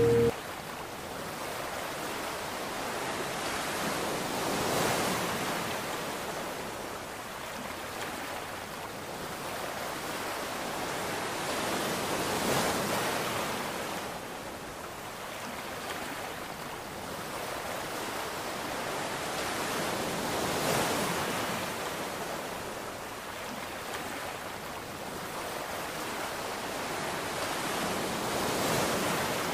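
Sea waves washing in and falling back, swelling and fading in slow surges about every eight seconds. A loud steady tone cuts off at the very start.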